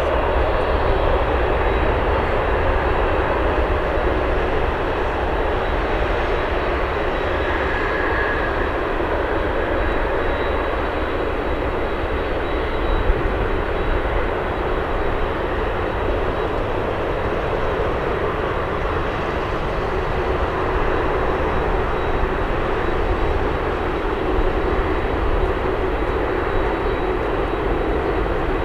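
Jet airliner engines running: a steady, even rush of noise with faint level tones underneath.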